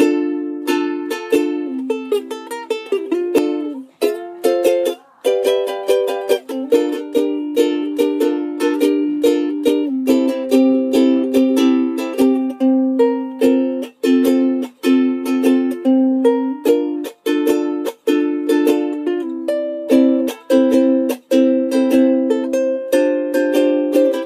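Solo ukulele playing a song, a melody carried over strummed chords, with brief breaks in the playing along the way. The playing starts right at the beginning.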